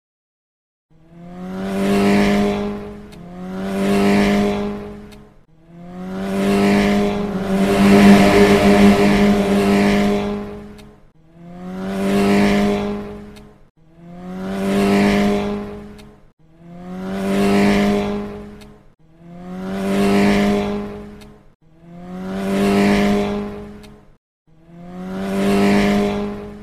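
Car engine sound effect, repeated about nine times: each time a steady-pitched engine hum swells up and fades away over about two seconds, with one longer pass of about five seconds in the middle.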